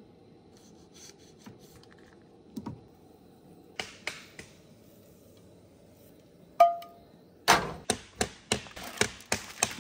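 Cookware and utensils being handled at a lit camp stove: scattered clicks and knocks over a steady low burner hiss, a metallic clink that rings briefly about two-thirds in, then a quick run of loud sharp clicks and knocks near the end.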